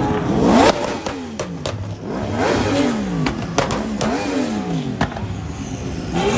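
A car engine revved repeatedly: about five quick blips, each rising and then falling back toward idle, with sharp cracks between them.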